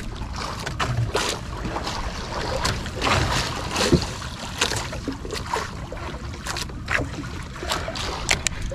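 Sea water lapping and splashing irregularly against a small outrigger boat's hull and floats, with wind rumbling on the microphone.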